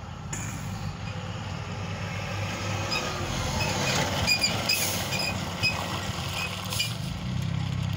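Pierce fire engine's diesel engine running at a steady idle close by, a continuous low rumble.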